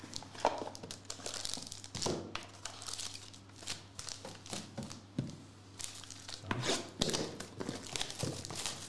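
Hands opening a 2021 Encased football card box: cardboard sliding and scraping as the inner box comes out, and the foil pack wrapper crinkling and tearing as the cards are unwrapped, with scattered sharp taps and rustles.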